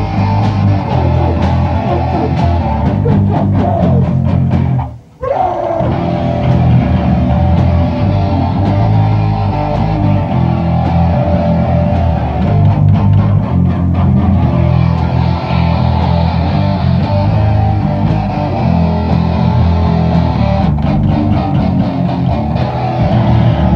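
Hardcore punk band playing live and loud: distorted electric guitar, bass and drums, with the whole band cutting out for a split second about five seconds in.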